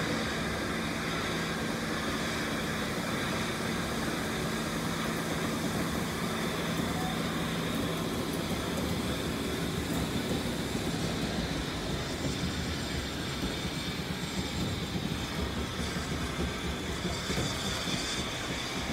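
Double-headed steam locomotives, led by GWR Castle-class 4-6-0 No. 7029 Clun Castle, passing slowly at the head of a train, with a steady hiss of steam over the rumble of the engines and wheels. A low hum fades out about halfway through.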